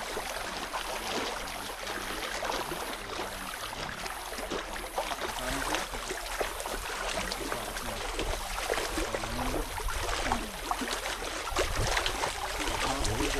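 Feet wading through a shallow, flowing sand-bottomed creek: continuous running-water noise with many small sloshes and splashes from each step.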